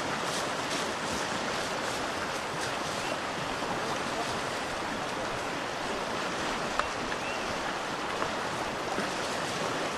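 Creek rapids rushing steadily: an even wash of white water.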